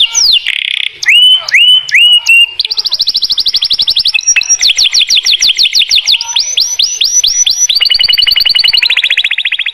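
Domestic canary singing a continuous song of repeated tours. It starts with a few drawn-out rising whistles, then a very fast trill, a series of quick falling notes, and ends in another rapid trill.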